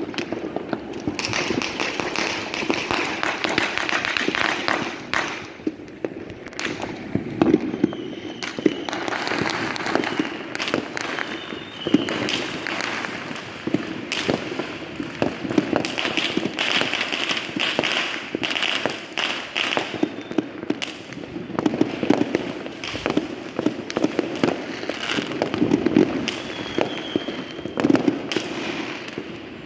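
Many fireworks and firecrackers going off without pause: a dense run of sharp bangs and pops over continuous crackling, with a few short whistling tones.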